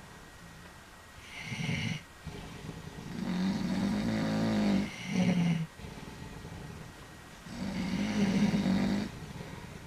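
Old men snoring in turn: four loud snores, two short ones and two longer ones of nearly two seconds each, with quieter stretches between them.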